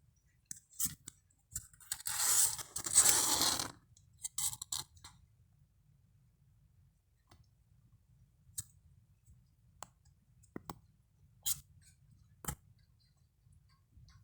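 Kittens playing: scattered light clicks and scratches, with a louder scraping, rustling noise lasting nearly two seconds about two seconds in.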